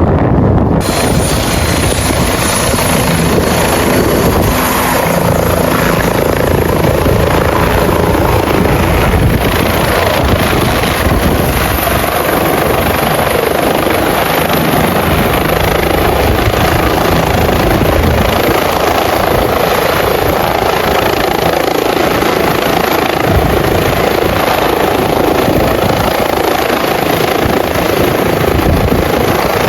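Helicopter running loudly and steadily, its rotor and engine noise continuous throughout.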